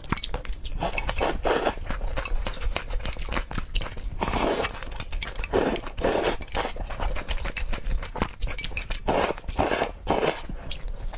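Noodles slurped from a bowl of soup in several noisy pulls, with wet chewing and mouth clicks between them.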